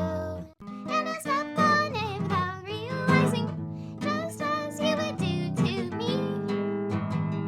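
A song with strummed acoustic guitar and a singing voice, breaking off briefly about half a second in before the guitar and voice come back.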